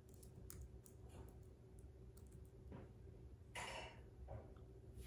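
Faint computer keyboard typing: a scatter of soft key clicks over the first two and a half seconds, with a short, louder burst of hiss about three and a half seconds in.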